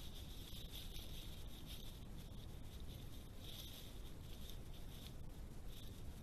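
European badger rooting through dry leaf litter, the leaves rustling and crackling irregularly over a steady background hiss.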